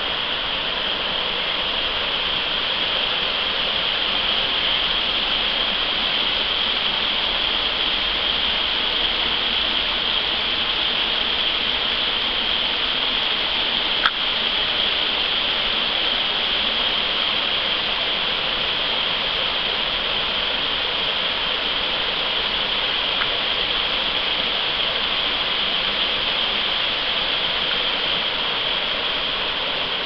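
Shallow creek water rushing steadily over rocks in a riffle, with one brief click about halfway through.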